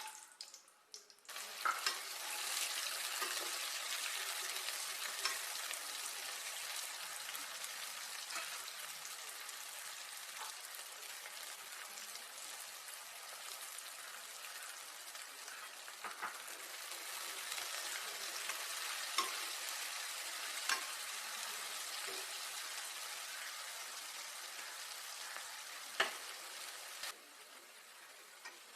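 Food sizzling as it fries in hot oil in a pot, stirred now and then with a utensil that knocks against the metal a few times. The sizzle starts about a second in and dies down near the end.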